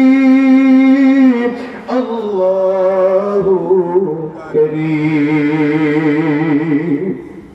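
A man's voice chanting God's name in long, drawn-out melodic notes, sung rather than spoken. It holds one steady note, glides down about a second and a half in, then sings lower wavering, ornamented notes that fade out near the end.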